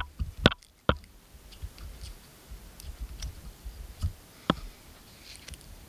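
Handling noise of fly tying: a few sharp clicks and taps as fingers work thread and foam on a needle with a bobbin holder, three in quick succession at the start and two more about four seconds in, with faint ticks and a low rumble between.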